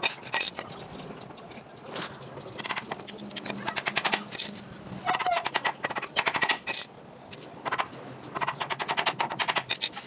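Claw hammer driving nails into wood: single blows at first, then runs of rapid strikes, with the densest runs past the middle and again near the end.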